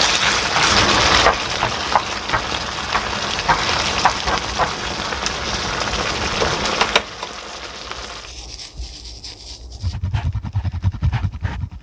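Tomato sauce and spaghetti sizzling in a stainless steel frying pan as they are tossed, with short clicks of the utensil against the pan. The sizzle drops much quieter about seven seconds in, and a run of soft low thumps comes near the end.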